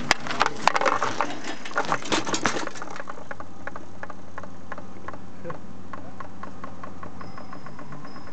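Bicycle rolling over a wooden bridge deck right above a microphone at deck level: a burst of loud, sharp clattering knocks for the first three seconds, then a run of fainter, evenly spaced clicks that fade as it rolls away.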